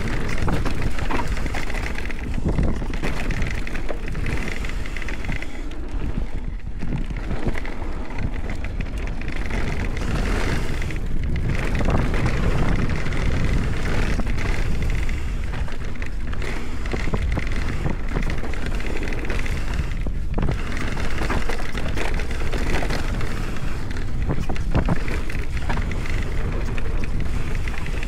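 Enduro mountain bike riding down a rough trail: constant wind noise on the microphone with a dense clatter of knocks and rattles from the bike over the ground.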